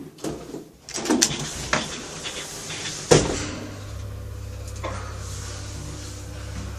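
Lift (elevator) machinery: a few clicks and knocks, then a sharp clunk about three seconds in like the doors shutting, followed by a steady low hum as the lift car runs.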